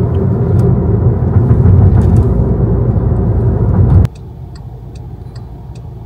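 Car cabin noise while driving, a loud steady low road rumble. About four seconds in it cuts abruptly to the quieter hum of the car waiting at a red light, with the turn indicator ticking steadily, about two to three clicks a second.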